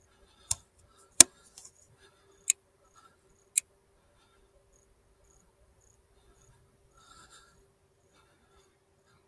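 Four sharp clicks and knocks close to the rifle scope's microphone, the loudest a little over a second in, with faint crickets chirping.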